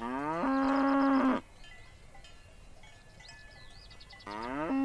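A cow mooing twice: two long calls that rise in pitch and then hold steady, one at the start and another near the end.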